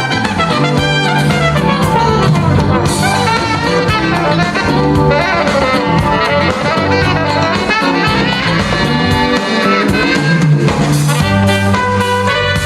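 Live jazz band recording with a brass horn line over bass and drums, played back through Wharfedale Elysian 4 loudspeakers.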